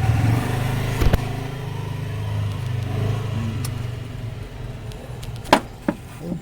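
A motor vehicle engine running steadily, fading out after about four and a half seconds. Sharp knocks come twice about a second in and several more times near the end.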